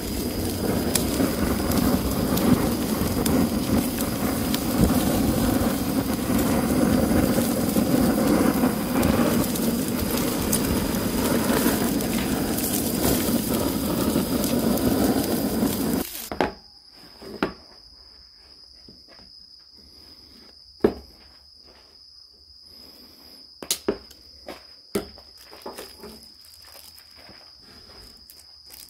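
Butane torch flame hissing steadily as it sears pork belly over a charcoal grill, with crackling. About halfway through it cuts off abruptly to quiet, leaving a steady high-pitched tone and a few sharp clicks and knocks of camp gear being handled.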